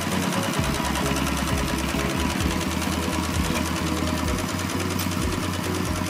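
Single-cylinder diesel engine of a two-wheel walking tractor running steadily with a rapid, even chugging as it drags its cage-wheel rotor through a flooded rice paddy.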